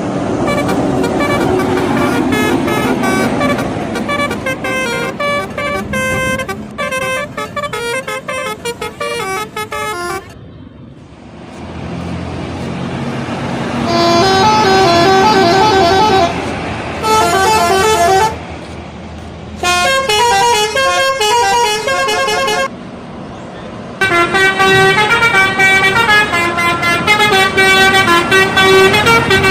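Bus telolet horns playing fast, tune-like runs of toots, several horn pitches stepping up and down. The tunes come in repeated bursts, with a quieter spell of a few seconds near the middle where only engine and road noise is heard.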